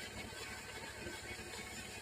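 Sawmill machinery running steadily with a fast, even low pulse.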